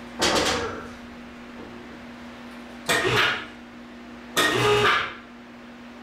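Electric hoist motor run in three short jogs of about half a second each, lowering and levelling a heavy steel plate hung in slings, over a steady hum.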